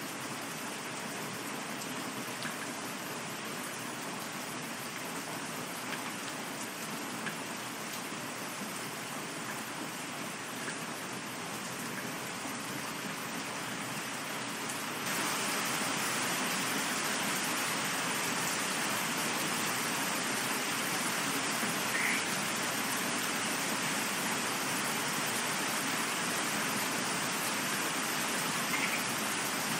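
Steady rain falling, a continuous hiss of drops with faint individual ticks; it steps up abruptly in loudness about halfway through.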